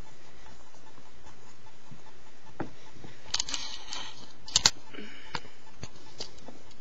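Steady hiss of the recording noise, with a few light clicks and scuffs about halfway through, the sharpest a quick double click.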